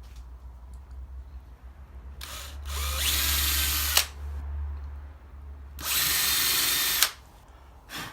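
Electric drill with a 3 mm bit run twice, drilling two pilot holes for hinge screws; each run speeds up with a rising whine at the start, lasts a second or two, and ends with a click.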